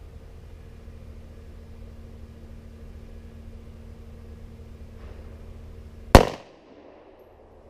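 A single loud shot from a Kel-Tec PF9 9mm pistol about six seconds in, sharp with a short ringing tail. Before it there is a steady low hum.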